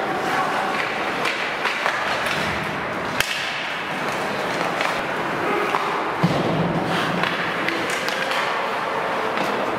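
Ice hockey game play on the rink: skate blades scraping the ice with scattered sharp clacks of sticks and puck, and one loud knock about three seconds in.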